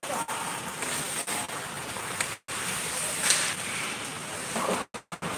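Ice hockey game in play: a steady hiss of skates on the ice with a couple of sharp knocks, and the sound cutting out for a moment twice.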